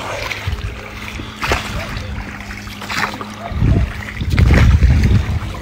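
Oars splashing in floodwater as a small boat is rowed, with a few separate strokes in the first few seconds. A steady low hum runs under it, and a loud low rumble comes in the second half.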